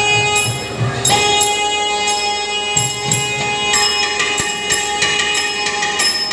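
Nadaswaram duet playing a melody over a steady drone, with sharp, irregular thavil drum strokes: live Carnatic nadaswaram-and-thavil music.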